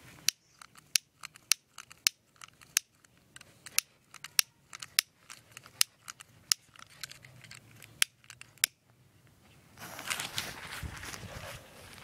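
Sharp, irregular clicks of a long-nosed utility lighter's piezo igniter being pulled over and over, trying to light the fuse of a bundle of firecrackers. The clicks stop about nine seconds in, and a stretch of rustling noise follows near the end.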